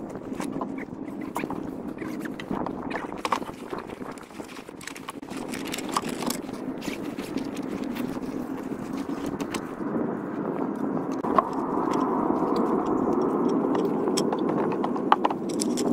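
Clatter and scraping of a wooden roll-top camp table being unpacked from its fabric carry bag and set up on a wooden deck: scattered sharp knocks of wooden slats and legs with rustling of the bag, over a steady rush that grows louder from about ten seconds in.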